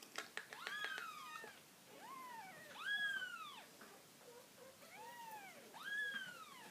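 Three-week-old kitten mewing repeatedly: about five high calls, each rising then falling in pitch, with a few short clicks in the first second.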